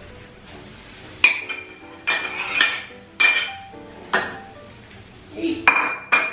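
Spatula clanking and scraping against a wok while stirring fried rice: about seven sharp metallic hits with a short ring, spread irregularly.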